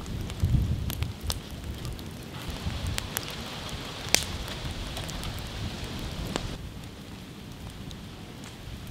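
Open wood-log fire burning, crackling with scattered sharp pops, the loudest about four seconds in, over a low rumble and a stretch of hiss in the middle.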